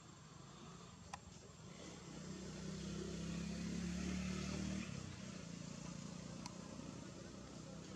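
A motor vehicle's engine running, a low steady drone that swells over a couple of seconds and then drops off abruptly about five seconds in.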